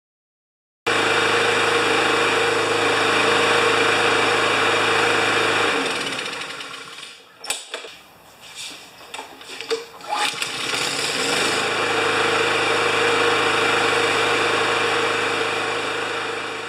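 Honda engine of a Lawn-Boy push mower running steadily, now that its faulty carburetor has been replaced. For a few seconds in the middle the steady running falls away and turns uneven, then the steady running comes back.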